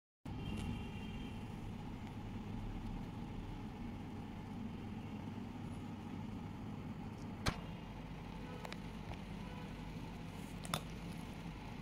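Steady low background rumble with two short sharp clicks, one a little past halfway and one near the end.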